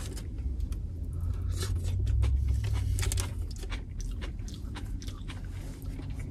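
Close-up chewing of a sub sandwich with shredded lettuce: irregular wet crunching and smacking clicks, over a low steady rumble.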